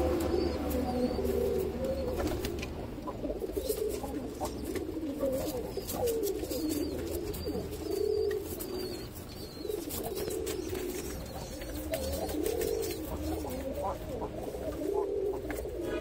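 Domestic pigeons cooing over and over in low, warbling phrases, with short flutters of flapping wings in the nest box.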